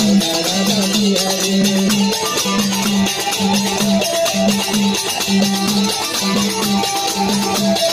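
Live Nepali bhajan music: a harmonium playing a wandering melody over a low note that repeats in a steady rhythm, with jingling, tambourine-like percussion keeping time.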